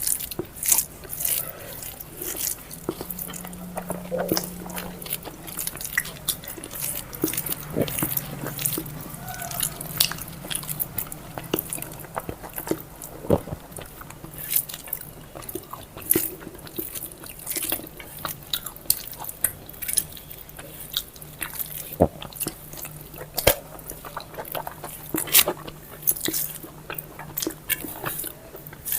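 Close-miked eating: a person chewing and biting a mouthful of okra curry and rice, with many short wet mouth clicks and smacks, over a faint steady low hum.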